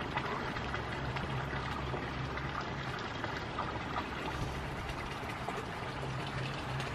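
Steady rushing outdoor noise with a low hum underneath, unchanging throughout.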